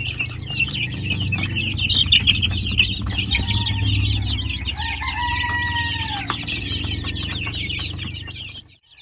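A brooder full of half-grown chicks of mixed shamo, gamefowl and heritage breeds, peeping and chirping constantly over a steady low hum. About five seconds in, a rooster crows once for a second or so. The sound drops out briefly near the end.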